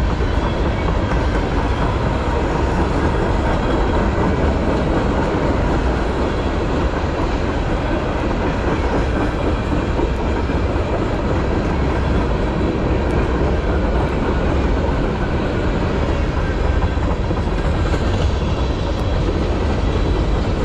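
Cars of a manifest freight train, tank cars and covered hoppers, rolling past close by: the steady noise of steel wheels running on the rails.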